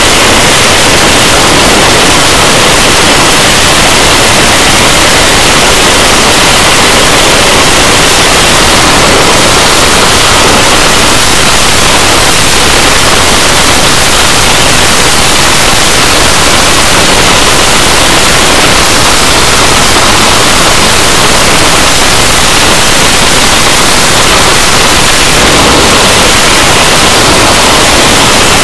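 The twin Rolls-Royce Avon turbojets of an English Electric Lightning F.6 running at high power on a static ground run. The dense, even jet noise is so loud that the microphone is overloaded, and the level stays the same throughout.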